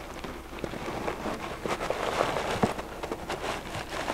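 Footsteps and clothing rustle of a man walking across a classroom floor: scattered soft taps and rustles over a steady low room hum.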